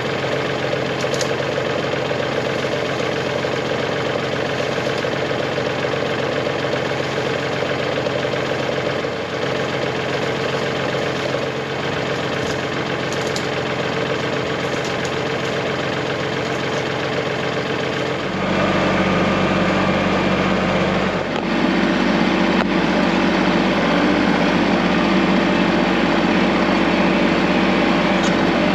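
An engine idling steadily. About 18 seconds in, its speed steps up and it runs louder, and it steps up again about three seconds later.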